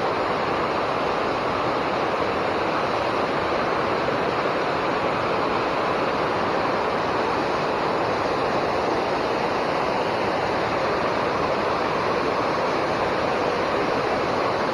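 Steady rush of water pouring over a river dam and falling into the pool below, an even, unbroken roar of moving water.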